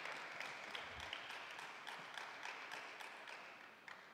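Spectators applauding just after a point is won, the clapping dying away steadily over a few seconds.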